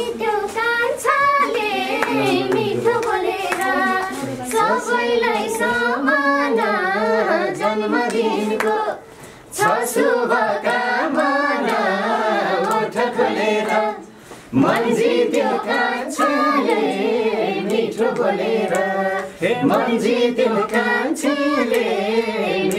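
Several voices singing a Nepali folk song together, with rhythmic hand clapping; the singing breaks off briefly twice, about nine and fourteen seconds in.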